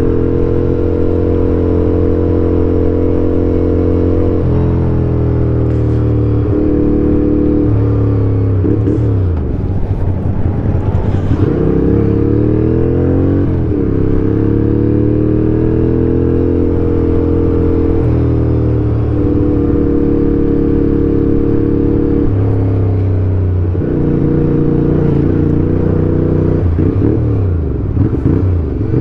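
Ducati motorcycle's engine running under way: a loud, steady engine note that holds for a few seconds at a time, then steps down or glides up and down again several times as the revs change.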